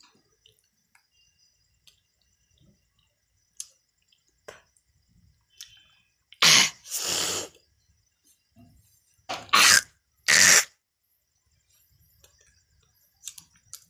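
A person coughing hard into a glass: two coughs about six and a half seconds in, then two more a few seconds later.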